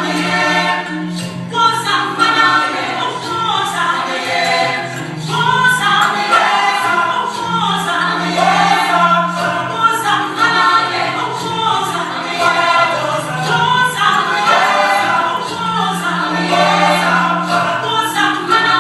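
Gospel choir singing, with many voices in harmony over a steady low bass note.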